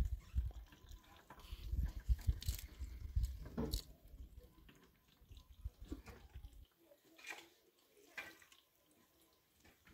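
Water trickling and dripping from a tank's tap into a plastic jerrycan, in separate splashes and drips, under a low rumble that stops abruptly about two-thirds of the way through.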